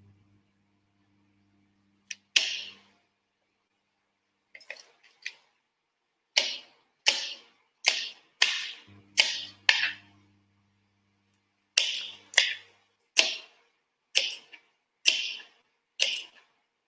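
Kitchen knife chopping carrots into chunks on a plastic chopping board: a few scattered cuts at first, then a steady run of firm chops, one every half-second or so, with a short pause partway through.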